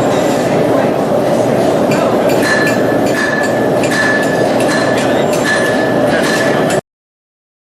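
Hammer striking metal on an anvil in a steady rhythm of ringing blows, about one every 0.7 seconds, over a loud continuous rushing noise. The sound cuts off abruptly near the end.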